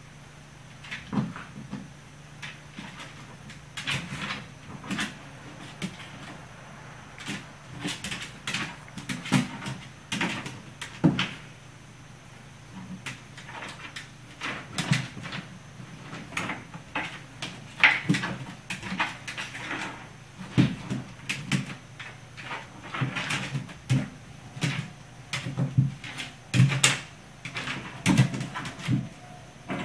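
Puppy batting and chasing an ice cube across a hardwood floor: irregular clicks and knocks of the ice skittering and claws scrabbling on the wood, over a low steady hum.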